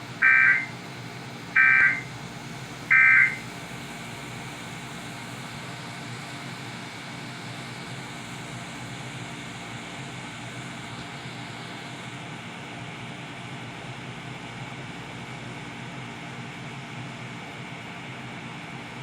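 Three short bursts of Emergency Alert System digital data tones, the end-of-message code, each under a second and about a second and a half apart. After them, steady hiss and hum of dead air.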